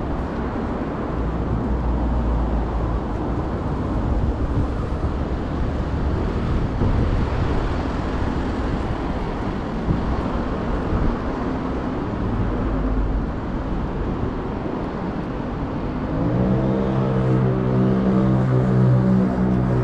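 Steady low rumble of vehicle noise. About sixteen seconds in, a steady low-pitched engine hum sets in and keeps going.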